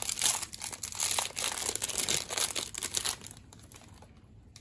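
Foil wrapper of a 2021 Topps Series 1 baseball card retail pack crinkling as the pack is handled and opened: dense crackling that stops about three seconds in.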